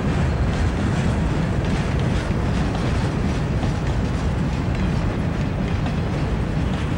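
Empty freight cars of a train rolling past close by: a steady rumble of steel wheels on the rails with faint repeated clicking.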